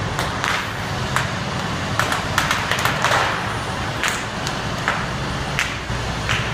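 Semi-truck's tyres rolling over bubble wrap, popping the bubbles in scattered sharp pops over the steady low rumble of the truck's diesel engine.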